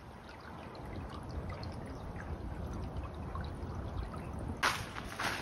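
Steady trickle of running water, with a few loud scuffs near the end.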